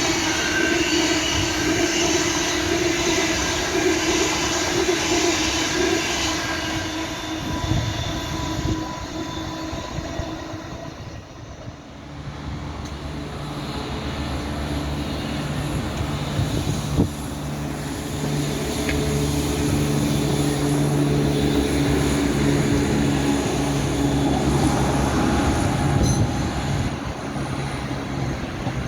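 Railway trains at a station: one train runs loudly and dies away about ten seconds in, then another approaches with a steady low drone that grows louder and stays loud.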